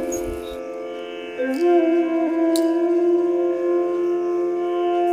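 Instrumental background music in an Indian classical style: a sustained melody line that slides up to a long, steady held note.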